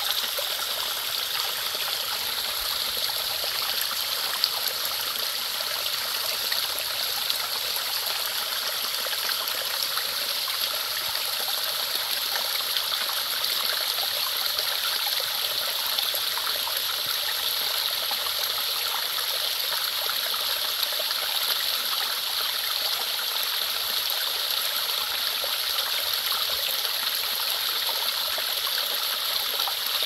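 A small stream spilling over rocks in a mini waterfall: steady splashing and trickling of running water.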